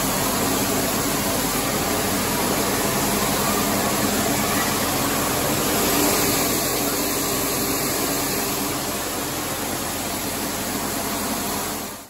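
Steady machine noise: a rushing hiss with a low hum underneath.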